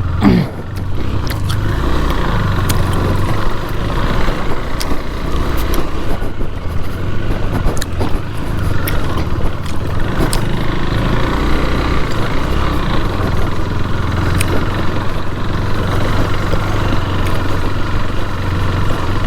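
Motorcycle being ridden at a steady pace, its engine running under a continuous rumble of wind on the microphone.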